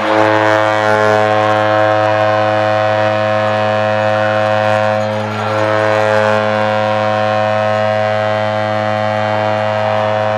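Arena goal horn sounding one long, steady, low blast to mark a goal, with the crowd cheering beneath it.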